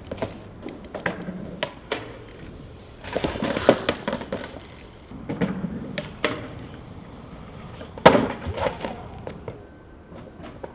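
Skateboard on concrete: a string of sharp wooden knocks and clacks from the board popping, landing and hitting the ground, with stretches of wheels rolling between them. The loudest knock comes about eight seconds in.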